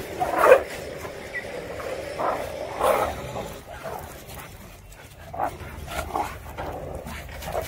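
Street dogs fighting: a string of short, irregular snarls and barks, the loudest about half a second in.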